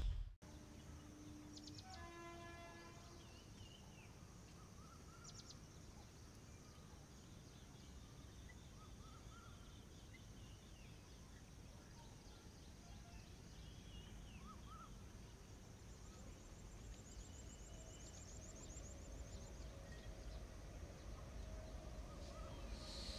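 Faint open-air quiet with scattered bird chirps and a short trill. Over the last several seconds the low rumble of an approaching WAP 7i electric-locomotive-hauled train slowly grows.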